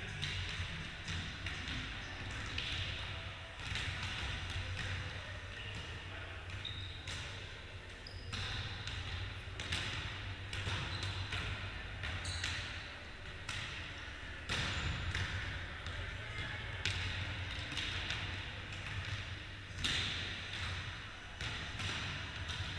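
A volleyball being hit and bouncing on the wooden floor of a sports hall during play: scattered sharp knocks every second or two, over a steady low hum.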